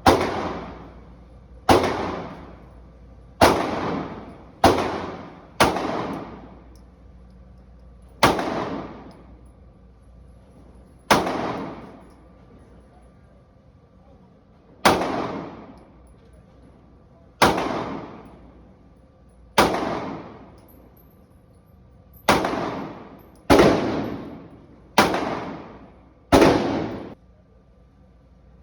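Gunshots fired one at a time, about fourteen shots at an uneven pace of one to four seconds apart, each sharp crack trailing off quickly.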